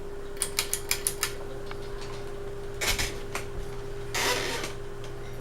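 Westinghouse Apollo Elite ceiling fan switched to low and running with a steady motor hum. A quick run of light clicks and rattles comes in the first second or so, and a single click about three seconds in. A short rustle follows near four seconds.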